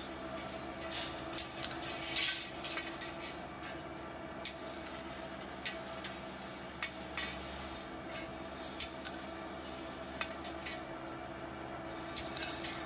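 Irregular light metallic taps and clinks as steel bicycle wheel rims are handled and struck with a small hammer, over a steady background hum.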